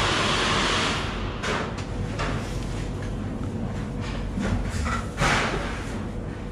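A steady hiss cuts off about a second in. It is followed by irregular scuffs and knocks from footsteps and from handling the camera while walking along the walkway beside the hull. The loudest knock comes just past five seconds.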